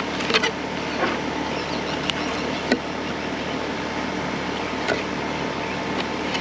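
Fillet knife working a fish fillet off the rib cage, giving a few short, sharp ticks as the blade meets the rib bones and the cutting board, over a steady mechanical hum.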